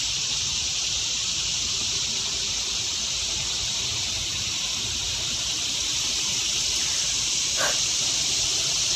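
Steady, high-pitched drone of a loud insect chorus, an even hiss that does not let up. Near the end there is a brief faint sound.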